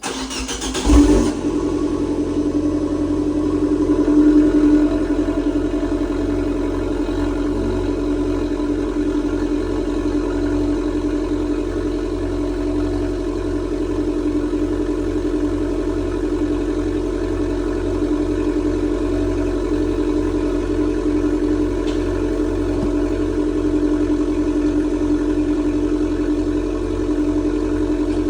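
Abarth's 1.4-litre turbocharged four-cylinder engine on its stock exhaust, cold-starting: it catches with a brief loud burst about a second in, swells once a few seconds later, then settles into a steady, even cold idle.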